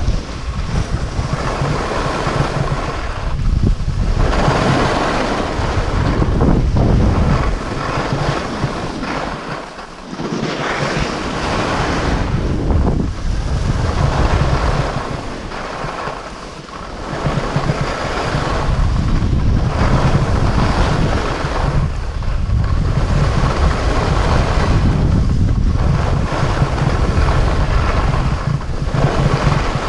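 Wind buffeting an action camera's microphone: a loud, low rumble with hissing gusts that swell and fade every few seconds, easing briefly twice.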